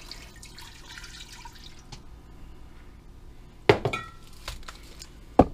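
A faint trickle of water into the steel cooker pot in the first two seconds, then a sharp clink of a glass mason jar with a short ring about two-thirds through, and another knock near the end.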